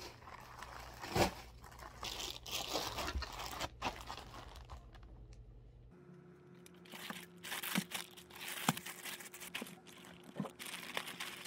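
Paper and plastic crinkling and rustling with small crunches and taps. The first part is barcode sticker sheets being handled. After about halfway, clothes in clear plastic garment bags are being rustled.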